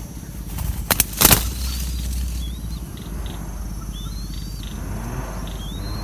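Two sharp wing flutters or rustles about a second in, as spotted doves shift on the branches by their nest, then thin high chirps from small birds that rise and fall over a low steady hum.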